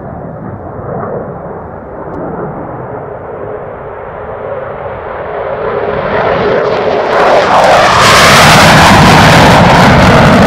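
F-15C Eagle jet, twin Pratt & Whitney F100 turbofans, approaching on a flyby: a low distant rumble that grows steadily louder and brighter, reaching full loudness with a hissing jet noise about eight seconds in as it passes.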